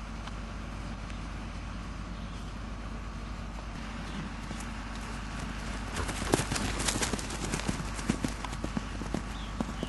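Hoofbeats of a mare and her newborn foal running across a grass paddock: irregular thuds and knocks that start about six seconds in, over a steady low hum.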